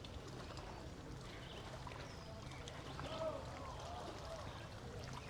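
Faint water sounds around a kayak: light trickling and lapping, with a distant voice heard briefly about three seconds in.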